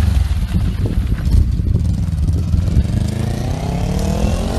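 Street traffic: a heavy low rumble, and from about three seconds in a motor vehicle's engine revving up, its pitch rising.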